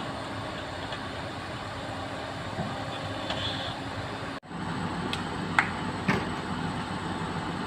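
Komatsu excavator's diesel engine running steadily. The sound cuts out for a moment a little over halfway, then resumes with two sharp knocks.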